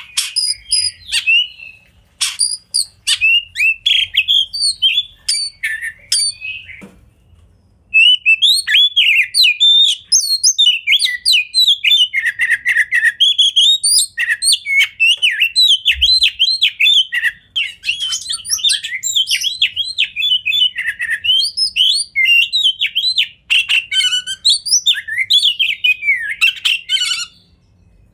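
Male oriental magpie-robin singing a long run of rapid, varied phrases, with a short break about seven seconds in. The song stops shortly before the end.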